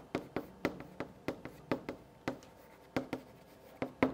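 Chalk writing on a blackboard: a quick, irregular run of sharp taps and short scrapes, about four a second, as characters are written by hand.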